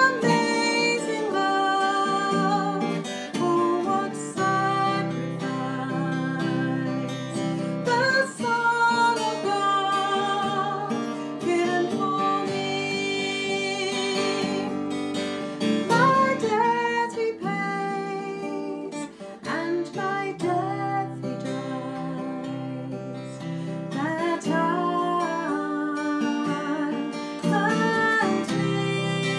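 A woman singing a worship song while strumming chords on an acoustic guitar.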